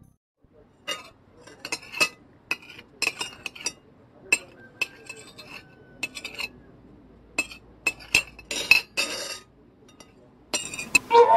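Spoons clinking against plates and bowls as people eat porridge: a run of short, sharp, irregular clinks with brief ringing, with a couple of longer, noisier sounds near the end.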